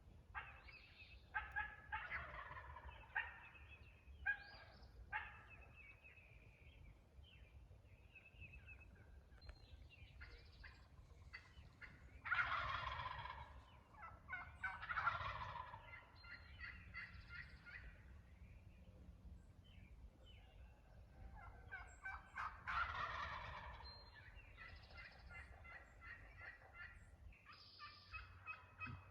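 Wild turkeys gobbling again and again, with the loudest gobbles about twelve, fifteen and twenty-three seconds in and quieter calls between them.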